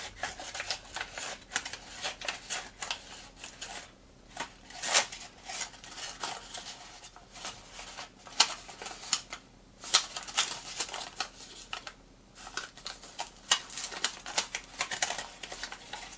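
Folded paper fortune teller crackling and rustling as fingers push into its pockets and work it open, a rapid string of sharp paper crinkles with brief pauses.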